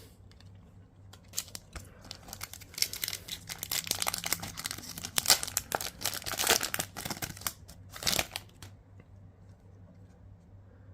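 Foil wrapper of a trading-card booster pack crinkling and being torn open, a dense run of crackles lasting about eight seconds before it stops.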